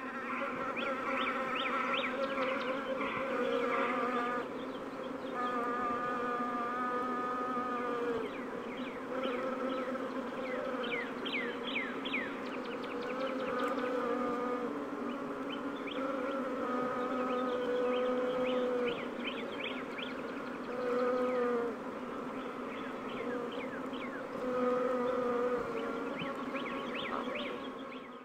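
Many bees buzzing together in a steady drone, with pitches that waver and overlap.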